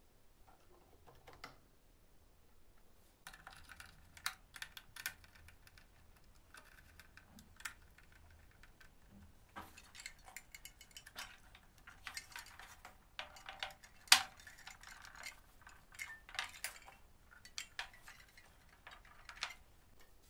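Light, irregular clicks and knocks of wood on wood as a hand-built wooden model Land Rover Defender is handled and set down on a wooden bench, with one sharper knock about two-thirds through.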